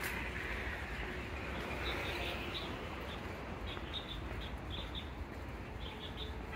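Small birds chirping: short high chirps in quick little clusters, starting about two seconds in and recurring, over a steady low background noise.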